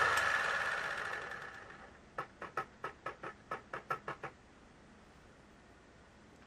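Arriflex 35-3 film camera's running mechanism winding down after being switched off, its whine fading over about two seconds. Then about ten quick mechanical clicks, roughly five a second.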